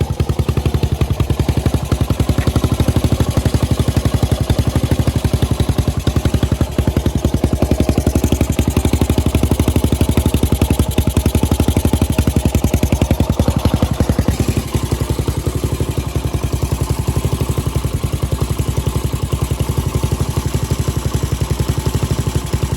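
Single-cylinder four-stroke engine of a Honda TL125 trials bike running with a steady, rapid beat. It has just been tuned for torque and is idling smoothly.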